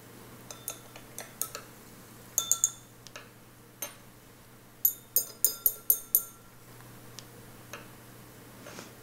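Small glass beakers clinking as a thin glass implement taps against them. There are a few scattered light taps, then a quick run of six clinks at about four a second, each ringing briefly.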